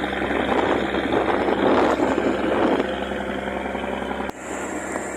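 Motor vessel's engine running steadily under way, with a rushing noise of wind and water that swells about a second in and eases near three seconds. A sharp click a little past four seconds is followed by a sudden drop in level.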